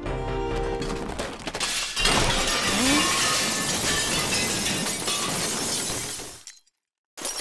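Stack of plates and bowls falling and smashing: a long run of breaking crockery starting about two seconds in. It cuts off suddenly about a second before the end, then starts again.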